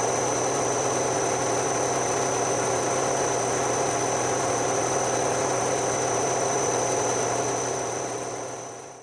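A workshop machine motor running steadily, with a constant high whine over a low hum, fading out near the end.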